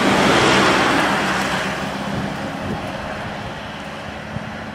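A Seibu Railway electric commuter train running past and away, its rolling noise loudest at first and fading steadily as it recedes.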